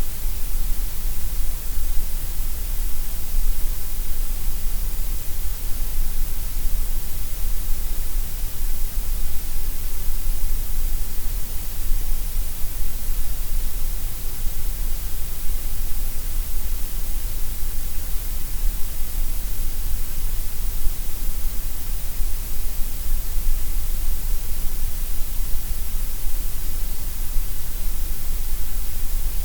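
Steady, unbroken white noise: an even hiss across the whole range, brightest in the highs, with no change over time.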